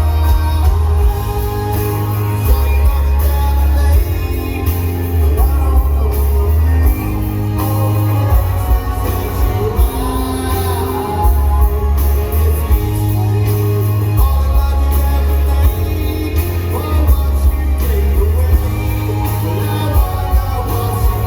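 Live rock band playing a song with singing over heavy bass.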